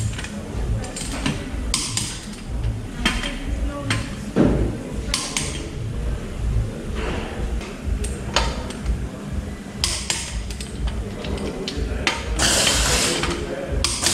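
Irregular metal clanks and knocks of tools and parts being handled at a car's wheel, with a short hiss about twelve seconds in.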